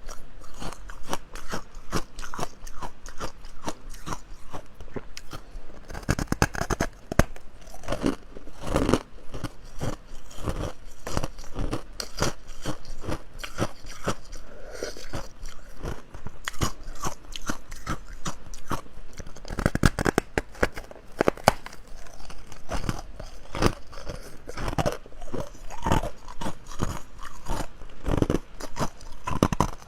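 Close-up crunching of ice being bitten and chewed, a dense run of irregular sharp cracks with a few louder bites.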